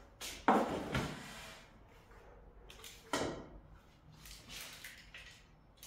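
Oven door being opened and a metal baking sheet pushed in onto the rack: two short clunking, scraping noises, about half a second in and again about three seconds in, with quieter handling between.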